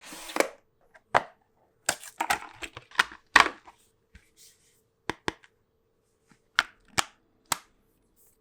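About a dozen sharp plastic clicks and snaps from a phone case and its packaging being handled, coming in irregular clusters, with a faint steady hum underneath.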